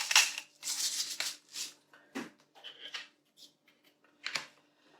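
Kitchen handling sounds: a run of short rustling, scraping noises and a few light knocks, with a sharper knock about four seconds in, as ingredients and containers are handled around a food processor.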